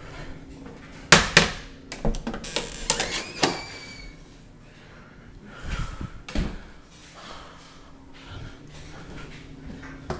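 A loud bang about a second in, then a run of knocks and clatter with a short squeak, and two dull thumps a little past the middle, over a steady low hum in a small room.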